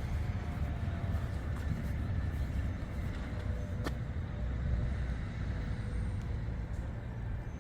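Steady low rumble of road traffic, with one sharp click about four seconds in.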